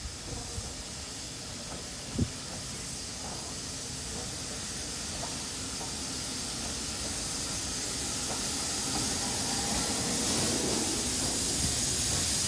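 Steam locomotive drawing slowly into a station, its steam hissing and growing steadily louder as it comes closer and passes below. A single sharp knock sounds about two seconds in.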